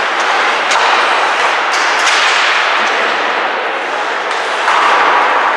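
Ice hockey in play: a steady hiss of skates and rink noise, with a few sharp cracks of sticks hitting the puck.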